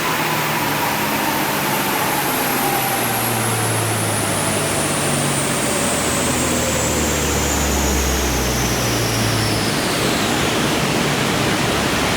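Holden VF Commodore Evoke's 3.0-litre LFW V6 with an aftermarket exhaust and intake, winding down. Whines fall steadily in pitch for about ten seconds over a loud rushing noise, with a low engine drone underneath.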